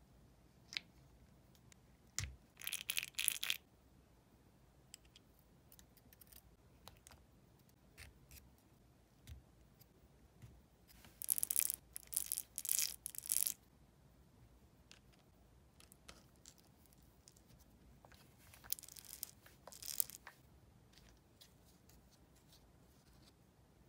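Planetary gearbox parts of a Makita 6270D drill handled by hand during disassembly and cleaning. There are light clicks of small metal gears against the plastic gear housing, and three brief bouts of scratchy scraping and rustling.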